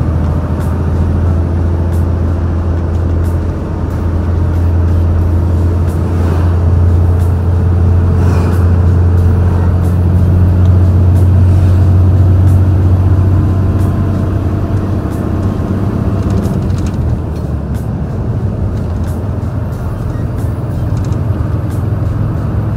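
Large truck's stock diesel engine pulling hard under full throttle up a steep grade, heard through a slightly open cab window: a steady deep drone that swells a little around the middle and eases near the end.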